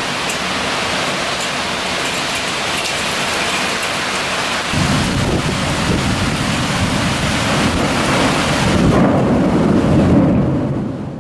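Heavy tropical rain pouring steadily. About five seconds in, a long low rumble of thunder builds beneath it and is strongest near the end, before the sound fades out.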